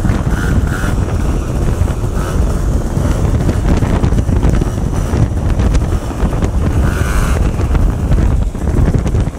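Heavy wind buffeting on the microphone of a camera riding alongside on a moving vehicle, with scooter engine noise underneath.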